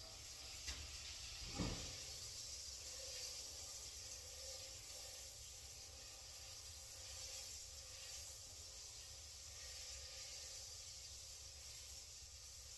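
Butter sizzling faintly in a hot frying pan, a steady soft hiss, with a small click about two seconds in.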